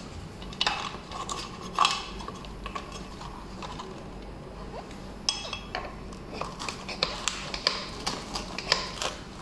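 Hands unplugging plastic wire connectors and handling parts: sharp clicks and clinks, two at first and then many in quick succession from about five seconds in.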